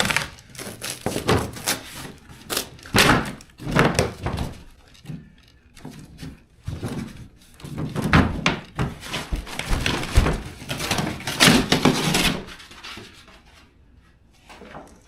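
Cardboard box and packing material being opened and handled: a run of irregular thunks, scrapes and rustles that die down near the end.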